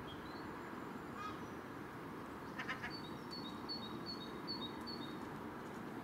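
Gull calls: short nasal calls, a brief one about a second in and a louder one near the middle, over a steady background hiss. A run of about five short, high chirps follows in the second half.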